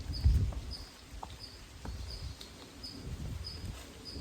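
Outdoor ambience: a short high chirp repeats evenly, about two or three times a second, from an unseen small animal. Low rumble, loudest near the start, sits underneath.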